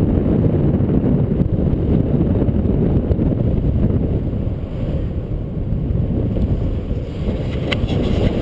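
Airflow buffeting the microphone of a camera on a paraglider in flight: a steady, loud low rumble. A brief click near the end.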